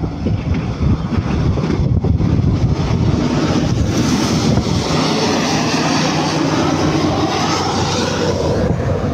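Caterpillar motor grader's diesel engine running as it passes close by, a steady low rumble with a rush of noise that swells from about four seconds in and falls away near the end.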